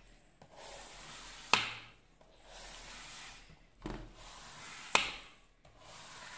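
A knife drawing through set coconut burfi in a metal plate: soft scraping strokes, with two sharp clicks of the blade striking the plate, about a second and a half in and again near five seconds.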